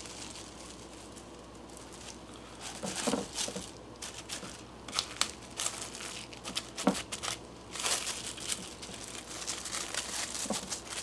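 Plastic cling wrap crinkling and rustling in irregular bursts as gloved hands stretch it over a glass bowl and press it down around the rim, starting about two seconds in.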